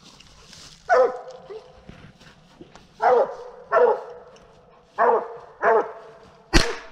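Coonhound barking treed at a possum up the tree, five barks spaced about a second apart, then a single sharp rifle shot near the end.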